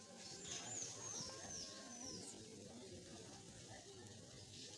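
A bird sings a quick run of about five high, downward-sliding whistled notes in the first two seconds, over a faint murmur of people's voices.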